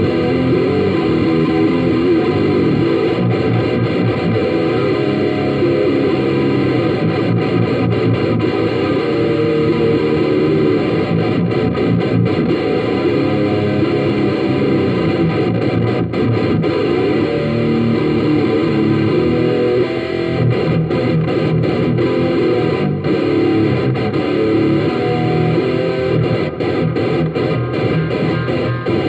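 Electric guitar played continuously through a Marshall CODE50 modelling amp with distortion, picked up by an iPhone microphone.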